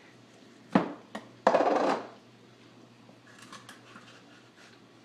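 Kitchen handling noises: a sharp knock of something set down on a counter, a small click, then a loud half-second scrape or rustle, followed by a few faint light clicks.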